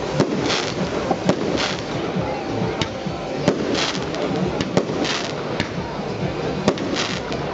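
Fireworks display: aerial shells bursting in the sky with sharp bangs at irregular intervals, about one a second.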